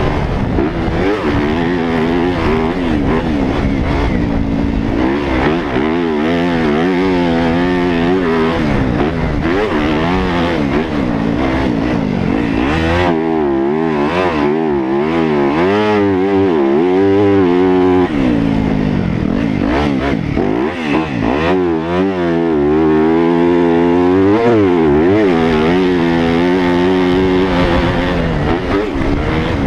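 Yamaha YZ250F's four-stroke single-cylinder engine under hard riding, heard from on the bike: its pitch climbs and drops again and again as the throttle is opened and closed through the track's straights and turns.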